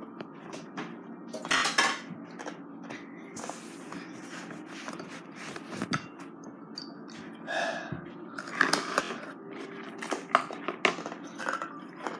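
Spoon clinking and scraping against a plate as ice is scooped up, in short clicks and scrapes at irregular intervals.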